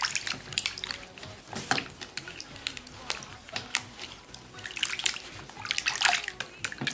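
Hands rubbing and washing fruit and a white radish in a basin of salted water: irregular splashing and dripping.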